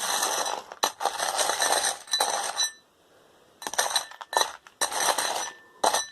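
Loose metal screws rattling and clinking against each other and their container as they are tipped and shaken in, in several bursts with a pause of about a second in the middle; some bursts leave a brief ringing tone.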